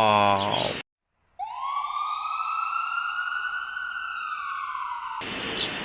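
Siren sounding one long wail: the pitch rises quickly, then slowly falls, and cuts off abruptly about five seconds in.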